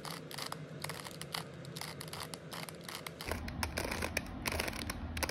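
Plastic 3x3 Rubik's cube being turned quickly by hand, its layers clicking in rapid irregular runs as a move sequence is repeated.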